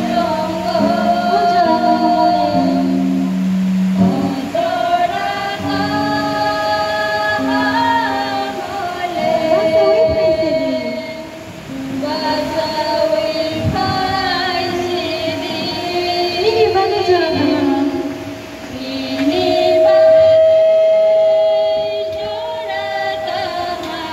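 A group of women singing a hymn together through microphones, in phrases with long held notes, the longest near the end.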